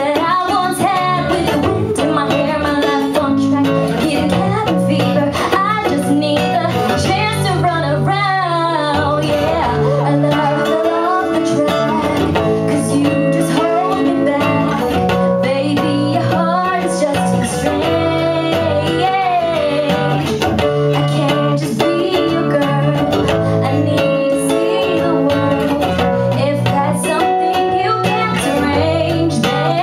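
A woman singing live through a microphone, accompanied by an acoustic guitar.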